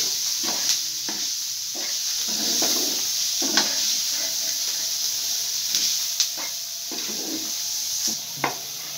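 Minced meat, tomatoes and spices sizzling on a large tawa as a wooden spatula stirs and scrapes through them, with a few sharp knocks of the spatula against the pan.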